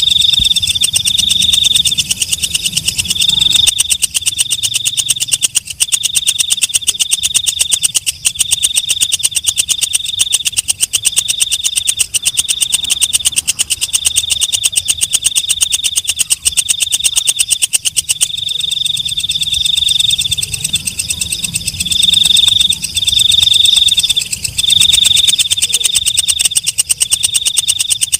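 Walang kecek, a green leaf-winged katydid, stridulating: a loud, high-pitched, rapidly pulsed buzzing chirp that goes on and on in phrases of about half a second to a second with short breaks between them.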